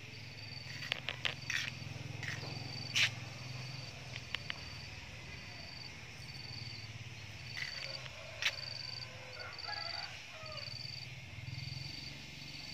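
An insect chirping: a high, even note repeated in short pulses about once a second, over a low steady hum, with a few sharp clicks.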